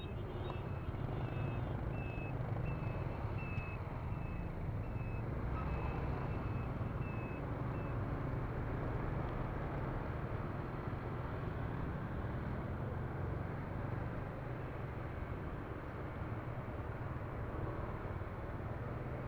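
Steady road-traffic and vehicle engine noise. Through the first eight seconds a high electronic beep repeats about every two-thirds of a second, like a reversing or turn-signal beeper, then stops.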